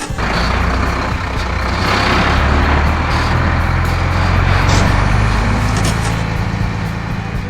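Heavy truck engine sound effect: a low, steady engine rumble with a rushing noise over it. It starts suddenly and grows a little louder mid-way.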